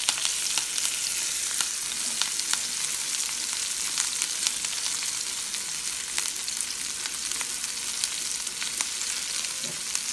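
Sliced carrot, onion, scallion, thyme and hot pepper frying in a little hot oil in a pan: a steady sizzle with frequent small crackles.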